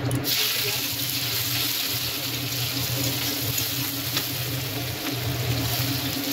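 Chopped onions sizzling in hot oil in a wok, the sizzle starting suddenly just after the start as they go in, and going on steadily while they are stirred with a spatula. A steady low hum sits underneath.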